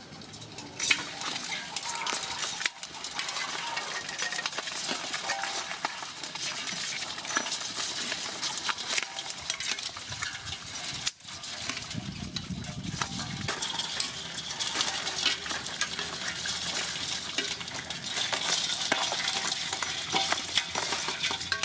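Live rice field crabs scrabbling and clicking against the inside of an aluminium basin, a dense run of small scratches and taps, with metal tongs clinking on the rim as crabs are dropped in.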